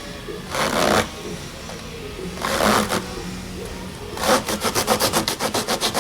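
Spin-on oil filter being cut open by hand: two short scraping strokes, then from about four seconds in a fast, even run of strokes, about six a second.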